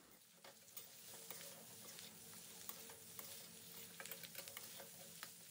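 Faint sizzle of chicken and bell peppers stir-frying in a kadhai, with a metal spatula clicking and scraping against the pan now and then. The vegetables are being fried only briefly, so they stay crunchy.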